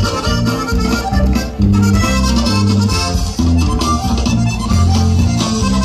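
Live norteño band playing an instrumental passage through the stage PA: button accordion carrying the melody over strummed guitar and a pulsing bass line.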